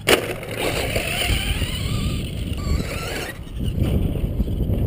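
Traxxas R/C truck's motor whining for about three seconds, dipping and rising in pitch as it drives off, then fading out. It opens with a sharp thump, the loudest moment, as the truck comes over the jump, and wind rumbles on the microphone throughout.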